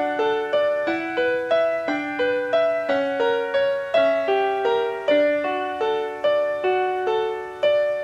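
Background piano music: single notes played at about two a second, each ringing and fading. The last note, near the end, is left to die away.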